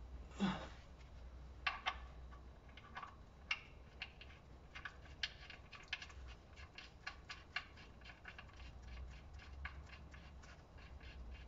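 Faint, irregular small clicks and scrapes of the oil drain plug and its new washer being threaded back into the VW Tiguan 2.0 TDI's sump by a gloved hand, with a brief swish about half a second in. A low steady hum runs underneath.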